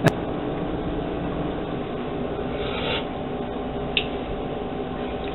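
A utensil clicks once against the soup pot, then a steady low kitchen hum, with a short scrape a little under three seconds in and a brief sip as the soup is tasted from a spoon about four seconds in.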